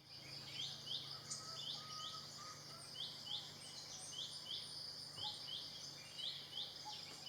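Tropical forest ambience: a steady high insect drone, with a short chirping call repeated over and over, mostly in pairs about once a second. A faint low hum runs underneath.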